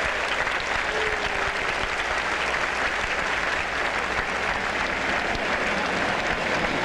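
Stadium crowd applauding steadily.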